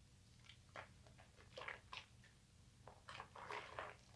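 Wet, soapy hands rubbing together, working up bar-soap lather: faint squishing in several short bursts, the longest near the end.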